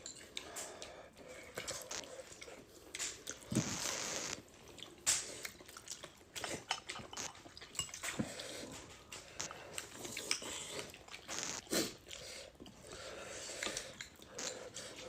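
A person eating hotpot food close to the microphone: irregular chewing and biting, with scattered small clicks and a few short noisy bursts.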